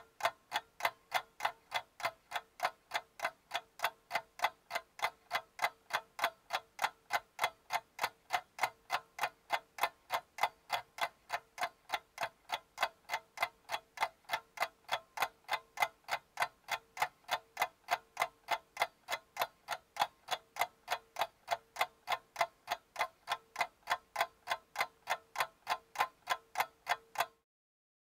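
Clock-like ticking sound effect, even ticks about three a second, cutting off suddenly near the end.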